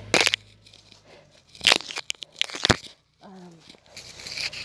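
Scattered crunching and rustling of dry leaves and twigs in brush, in a few separate bursts with sharp clicks and snaps among them.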